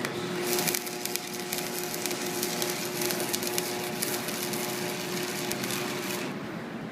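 Stick (arc) welding: the electrode's arc crackling and sputtering steadily as a bead is run slowly, with a steady hum beneath it. The arc strikes at the start and cuts off about six seconds in.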